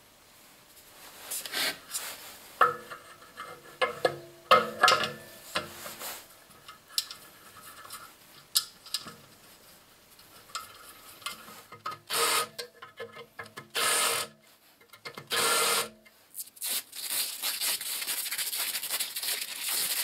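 Metal parts handled and fitted by hand: irregular knocks and clinks, some with a short metallic ring, and several scraping, rubbing noises, with a longer stretch of rubbing near the end.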